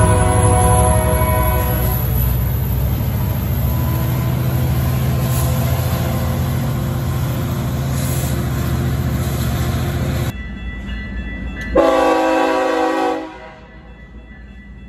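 Metra EMD F59PHI diesel locomotive pulling away with a deep, steady engine rumble that slowly eases off, until it cuts off suddenly about ten seconds in. About a second and a half later a Canadian Pacific freight locomotive's air horn sounds one chord for about a second and a half.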